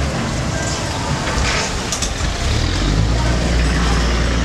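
A dense shoal of fish thrashing and splashing at the surface in a feeding frenzy, a churning wash of water. Under it runs a steady low engine rumble.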